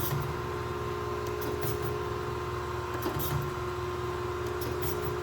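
Kent KGS-63AHD hydraulic surface grinder running: a steady hum from the spindle motor and hydraulic pump, with faint ticks about every second and a half as the table traverses.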